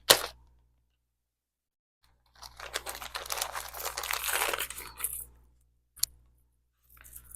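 Wrapping around a piece of jewelry being pulled open: about three seconds of crinkling and tearing starting a couple of seconds in, with a sharp click at the start and another single click near the end.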